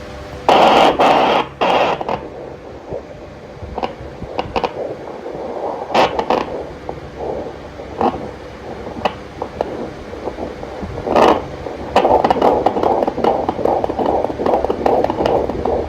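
Handheld fetal Doppler's speaker: scraping and crackling noise as the probe is moved over the belly. About three-quarters of the way in, a fast, even pulsing whoosh sets in, the heartbeat of one of the twin fetuses.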